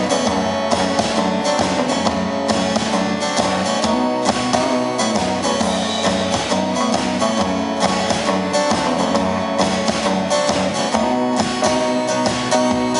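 Live indie pop band playing an instrumental passage with no singing, led by strummed guitar over a steady beat.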